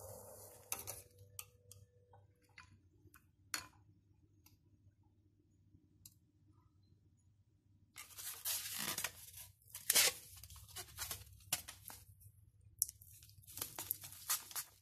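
Scattered light clicks and taps, then from about eight seconds in a stretch of crinkling, tearing packaging with sharp clicks as a polystyrene natto pack is opened.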